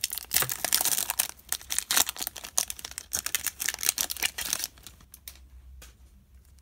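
Foil wrapper of a 2019 Bowman baseball card pack being torn open and crinkled: dense crackling for about four and a half seconds, then fainter, scattered rustles.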